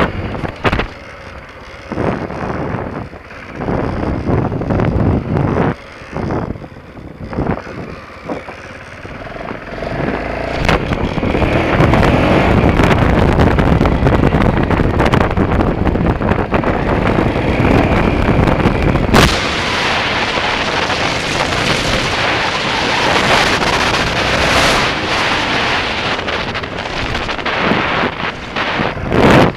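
BMW F650GS Dakar motorcycle ridden along a dirt track, its engine mixed with heavy wind buffeting on the camera microphone. The sound comes in choppy gusts at first, then becomes a louder, steadier rush from about ten seconds in.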